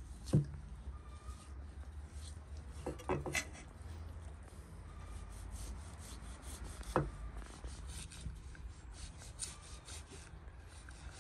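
Large kitchen knife slicing through raw beef heart on a wooden cutting board: repeated short rasping strokes of the blade through the meat, with the blade knocking the board about half a second in, in a quick cluster around three seconds, and again about seven seconds in.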